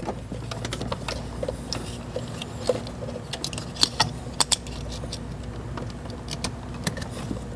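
Plastic ignition-coil wiring connectors and harness wires being handled and plugged together: scattered light clicks and rattles over a steady low hum.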